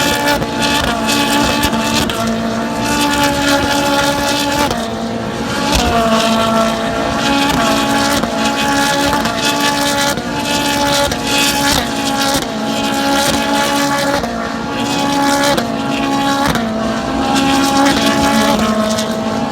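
Ferrari racing car engine running at high revs on track, its note holding steady and then stepping and bending in pitch several times through the gears.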